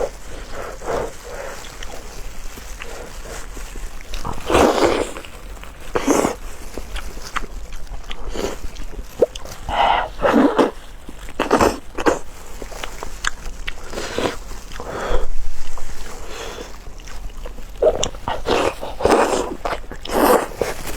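Close-miked eating sounds: wet chewing, lip smacking and the clicks of food being bitten, in irregular bursts.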